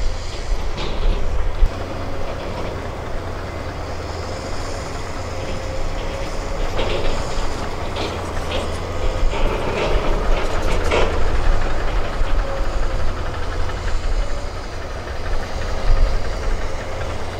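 Sumitomo hydraulic excavator's diesel engine running with a low rumble and a steady whine, joined by a cluster of sharp clicks and knocks between about seven and eleven seconds in.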